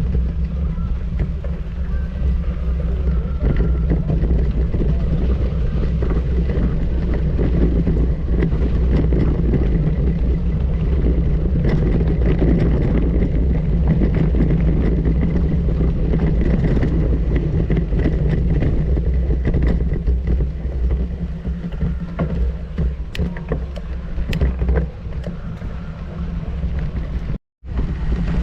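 A vehicle's engine running steadily while driving, with wind noise on the microphone. The sound cuts out completely for an instant near the end.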